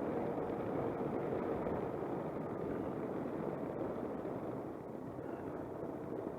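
Suzuki Burgman 200 scooter cruising at a steady speed: an even rush of wind and road noise with a faint steady engine hum beneath it, easing slightly about five seconds in.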